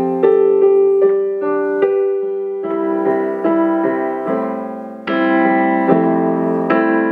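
Solo piano playing the introduction to a worship song: a slow melody of struck notes over held chords, growing fuller and louder from about five seconds in.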